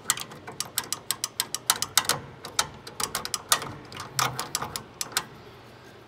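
Door interlock microswitch of a 1983 Amana Radarange microwave being pressed and released by hand over and over, many quick clicks at about four or five a second that stop near the end. It is being worked to spread freshly sprayed electrical contact cleaner, as the switch is stiff and lags.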